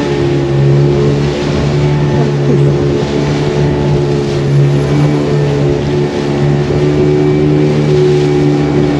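A river passenger boat's motor running steadily at cruising speed, a loud even drone that holds its pitch, with water rushing and spraying along the hull.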